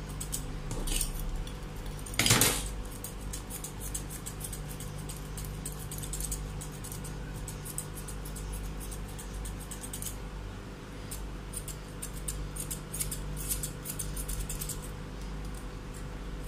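Curved grooming scissors snipping a Pomeranian's facial fur in quick runs of small sharp clips. A brief, louder rush of noise comes about two seconds in.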